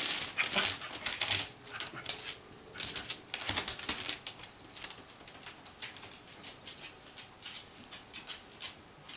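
A dog's claws clicking and scratching on a bamboo floor mat as it gets up and moves about. Quick irregular clicks, loudest near the start and again about three to four seconds in, then fainter.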